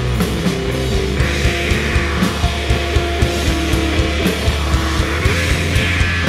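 Rock band playing live: electric guitars holding notes over a bass line and a steady drum beat.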